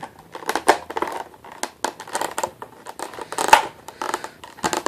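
Rustling, crinkling and clicking of packaging as a phone is taken out of its box, with a sharper knock about three and a half seconds in.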